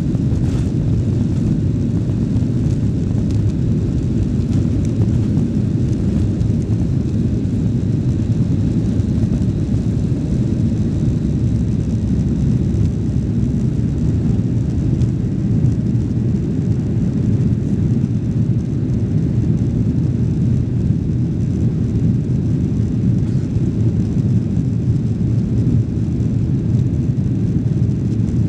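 Boeing 737-800's jet engines at takeoff power heard from inside the cabin: a steady, loud low rumble through the takeoff roll, liftoff and initial climb.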